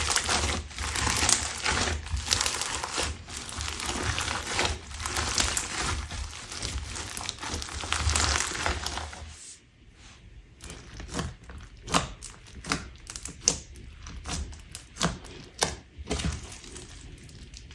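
Clear crunch slime being worked by hand, crackling densely. About nine seconds in it thins out to separate pops and clicks.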